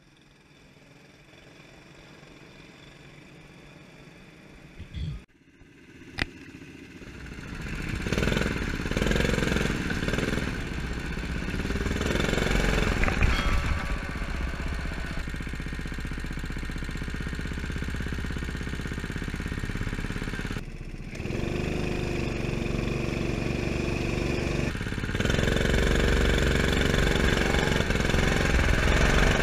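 Go-kart engine running hard, heard from a camera mounted on the kart; its note rises and falls with the throttle and eases off briefly about two-thirds of the way through. The first few seconds are quiet apart from a short thump and a sharp click just before the engine comes in.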